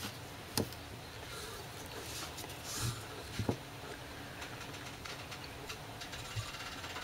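Handling noise of a metal pocket caliper and a recovered expanded bullet on a cloth-covered table: a sharp click about half a second in, a few soft taps around three seconds in, and faint ticking and rubbing as the caliper is held and moved.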